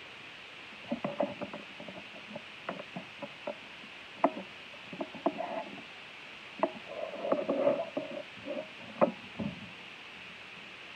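Steady background hiss on the recording, with scattered light clicks and taps of small make-up items being handled between about one and nine seconds in.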